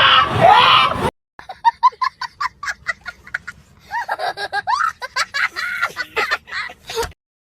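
A comic sound effect of rapid, squeaky, bird-like honking calls in quick runs with short pauses, some calls sliding in pitch. It follows a second of loud shouting and stops abruptly near the end.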